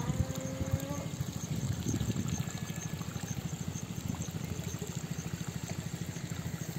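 A small engine running steadily with an even chugging beat of about ten pulses a second. A short rising call sounds in the first second.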